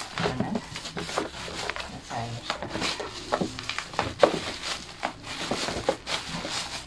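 Bubble wrap and taped plastic packaging crinkling and rustling as a parcel is unwrapped by hand, with many sharp crackles.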